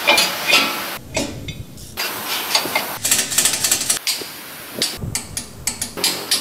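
Metal tools and brake parts knocking, clinking and rattling during a front brake disc change, in short bursts with sudden changes about every second or so.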